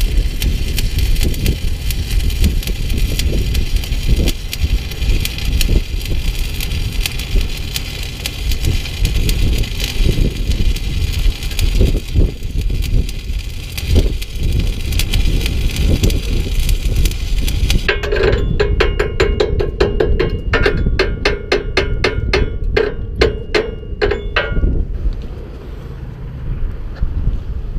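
Arc welding on a steel plate seam: a steady, dense crackle of the arc. About eighteen seconds in it changes to a rhythmic, buzzing crackle, which stops about six seconds later.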